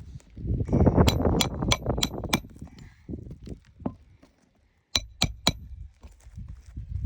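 Hammer blows on metal driving roofing nails into asphalt shingles, with a metallic ring: five quick taps about a second in, then three more about five seconds in, with scraping and rustling around them.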